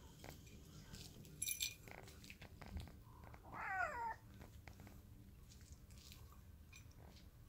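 A domestic cat meows once about three and a half seconds in: a short call that falls in pitch.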